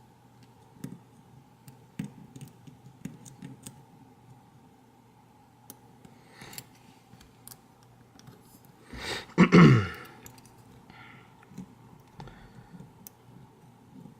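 Faint, scattered clicks of a lock pick and tension wrench working the serrated pins of an ACE A527 padlock during single-pin picking. About nine seconds in, a short, louder vocal sound falls in pitch.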